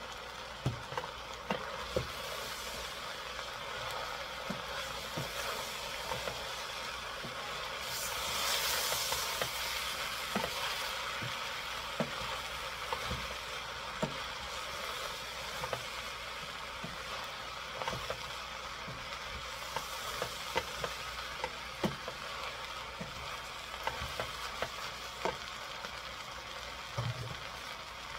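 A wooden spoon stirring vegetables in a stainless-steel stockpot, knocking now and then against the pot, over a steady sizzling hiss of food frying. The sizzle swells for a couple of seconds about a third of the way in.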